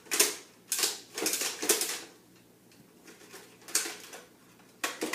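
Hard plastic parts of a Nerf Recon CS-6 blaster clattering and clicking as they are handled and an accessory is fitted onto it, in a few irregular bursts with quiet gaps between.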